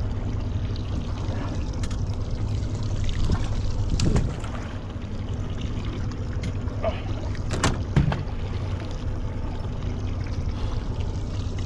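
Steady low hum and water noise aboard a small fishing boat, with a few sharp knocks about four seconds in and again near eight seconds.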